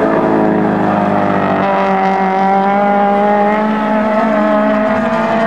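Suzuki Swift race car engine running at high revs as the car drives past, its pitch climbing slowly as it accelerates out of a corner and then holding steady.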